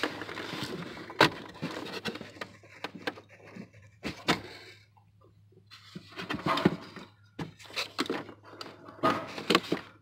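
Hands working at a plastic electrical connector and its wiring inside a dashboard opening: rustling and scattered sharp clicks and knocks as the connector's locking tab is pushed back, with a short quiet pause about halfway.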